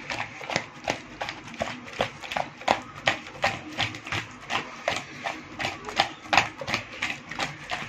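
Raw rohu fish pieces being tossed by hand in a plastic bowl to coat them with salt and turmeric: the pieces knock and slap against each other and the bowl's sides in quick, irregular clicks, about three a second.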